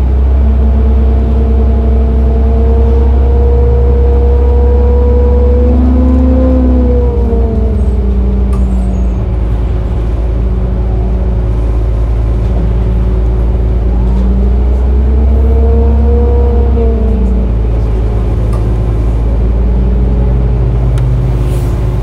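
2006 Orion VII transit bus running while stopped, a steady low engine drone. Over it a whine climbs slowly in pitch twice, once over the first several seconds and again in the middle, each time dropping back.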